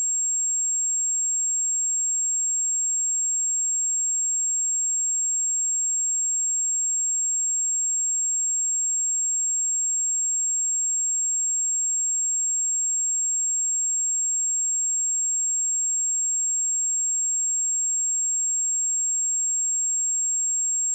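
A pure 7536 Hz sine-wave test tone: one steady, very high-pitched whistle at constant loudness.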